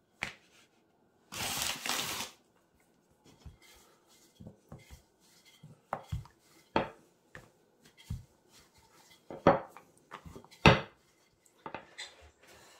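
Wooden rolling pin working pastry dough on a worktop: one longer rolling stroke about a second in, then scattered knocks and taps as the pin and dough rounds are handled.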